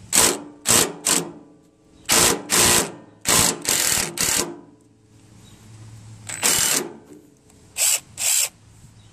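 Black+Decker cordless drill-driver with a socket bit, run in about ten short bursts of a second or less, spinning out the bolts that hold the garden tractor's hood bracket. There is a pause of about two seconds a little past the middle.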